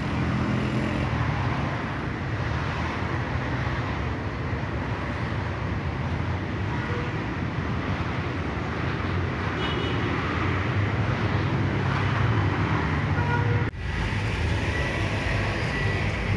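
Steady city road traffic, cars running past on a busy street beside the pavement. About three-quarters of the way through it cuts abruptly to the engine and road hum heard inside a car moving in traffic.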